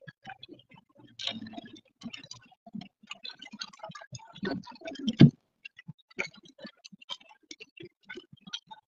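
Raindrops ticking irregularly on the car's windshield and roof, heard from inside the cabin, with two louder knocks, one about a second in and one about five seconds in.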